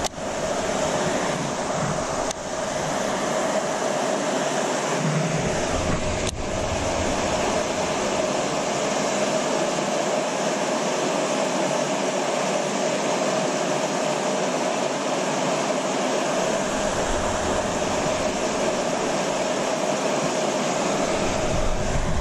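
Steady rush of water pouring through a small concrete spillway, an even, unbroken noise.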